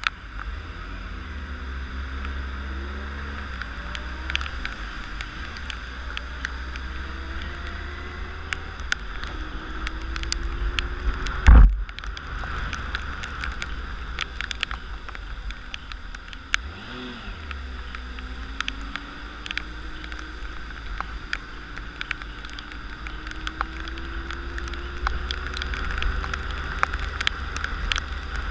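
Motorcycle riding in the rain, heard through a mounted camera: steady wind and road rumble, with the engine note climbing several times as it accelerates, and raindrops ticking on the camera. One loud knock a little before the middle.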